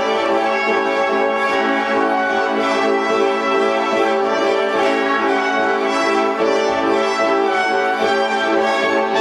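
Orchestral music with the brass section prominent, horns and trombones over a repeating accompaniment figure, playing at a steady loud level.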